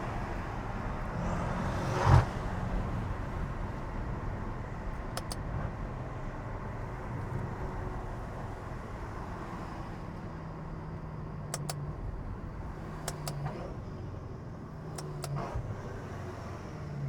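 BMW M5's twin-turbo V8 running steadily under way at cruising speed, with a single sharp thump about two seconds in and a few faint clicks later.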